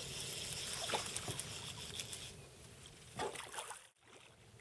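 Water trickling and splashing from a hooked redfish being fought beside a kayak, with a few small knocks; the sound drops out briefly near the end.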